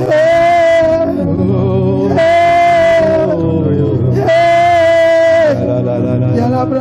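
Worship music: a voice sings three long, level held notes, each lasting about a second, over a steady low drone.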